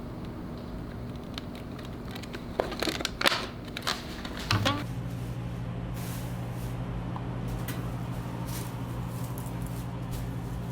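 A steady machine hum, which shifts to a stronger, lower drone about four and a half seconds in. A short run of clatters and knocks comes in the middle.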